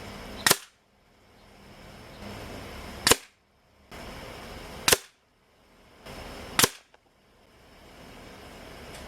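Four single shots from a .22 Umarex Notos air rifle, each a short, sharp crack, spaced about two seconds apart.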